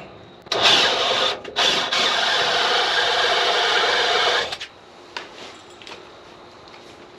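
Electric drill running with its bit cutting into the steel sawmill track, starting about half a second in, pausing briefly twice, then boring steadily for about three seconds before it stops.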